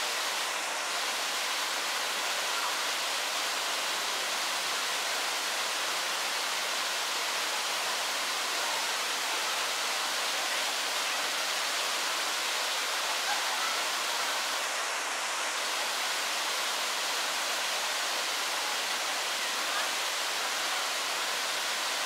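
Steady, even hiss-like noise with no distinct sounds standing out.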